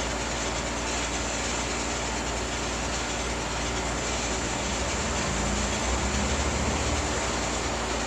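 Steady, even rumbling noise with no distinct events.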